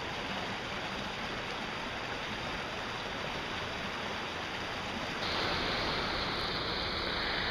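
River water rushing over and through a small wooden log dam, a steady rushing; it gets a little louder and brighter about five seconds in.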